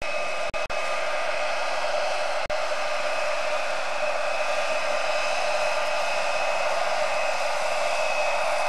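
A steady rushing noise with a faint high whine running through it, briefly cut out by short dropouts about half a second in and again around two and a half seconds in.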